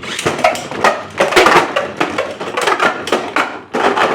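Two 3D-printed Beyblade spinning tops clashing in a stadium: rapid, irregular hard clicks and clattering knocks, with denser bursts of collisions about a second in and near the end.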